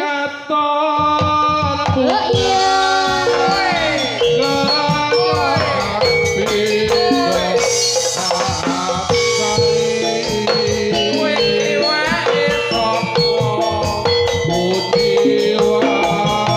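Live jathilan accompaniment music starting abruptly: a Javanese gamelan-style ensemble with fast, busy drumming and shaken percussion under pitched melodic parts. Sliding, wavering melodic notes come in a couple of seconds after the start.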